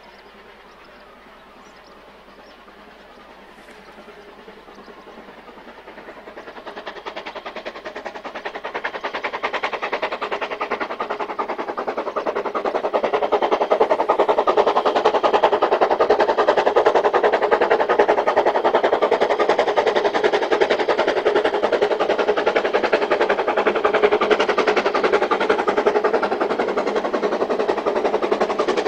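Narrow-gauge steam locomotive hauling a passenger train, chuffing with rapid, even exhaust beats. It is faint at first, grows louder over about ten seconds as the train approaches, then holds loud and steady.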